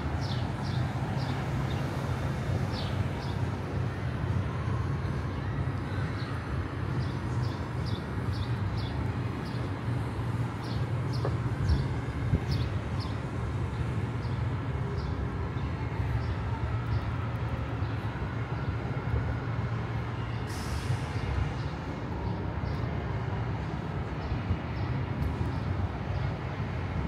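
Steady low rumble of city street traffic, with a short sharp hiss about twenty seconds in.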